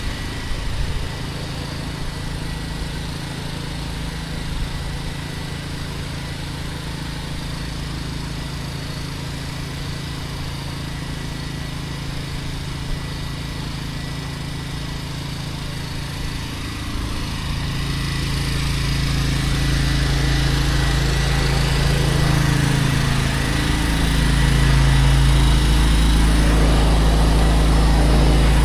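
Small gasoline engine of a pressure-washing rig running steadily, growing louder about two-thirds of the way through.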